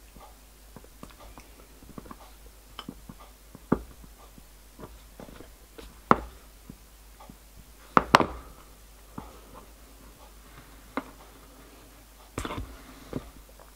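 Small clicks and taps of needle-nose pliers and small parts being handled on a workbench, as a thin strap is bent around a small MDF buffer. Most taps are light, with a few sharper clacks, the loudest a close pair about eight seconds in.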